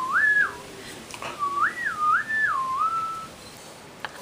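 A person whistling two short phrases of a single clear tone that slides up and down. The first phrase is brief, and the second, longer one starts about a second and a half in.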